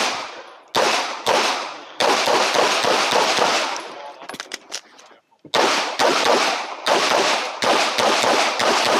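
Glock 17 9 mm pistol fired in rapid shots during a timed practical-shooting stage: three shots, a pause of about three and a half seconds with a few faint clicks, then five more shots about half a second apart, each shot ringing out afterwards.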